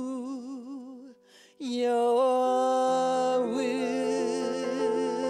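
A woman singing a slow hymn with vibrato while accompanying herself on a grand piano. A held note fades out about a second in, there is a brief pause for breath, and then the next phrase begins over sustained piano chords.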